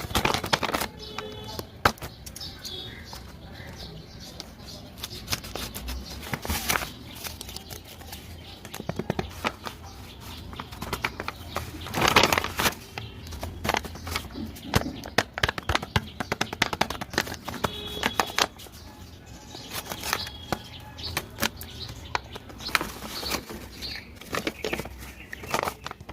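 Plastic blind-bag packaging crinkling and rustling as it is handled and opened, with many irregular sharp crackles and a louder flurry of them about halfway through.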